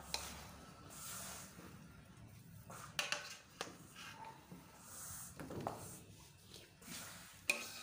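Metal spoon stirring cooked rice in a large metal pot: soft rustling of the grains with a few sharp clinks and scrapes of the spoon against the pot, the loudest near the end.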